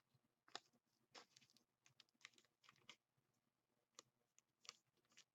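Faint, irregular clicks and rustles of trading cards being handled and flipped through.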